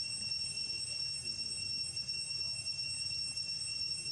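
A continuous high-pitched insect drone, two steady tones one an octave above the other, over a low, uneven rumble.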